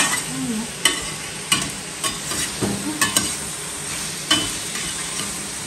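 Diced zucchini sautéing in a stainless steel pot with a steady sizzle, stirred with a metal slotted spoon that clinks against the pot several times.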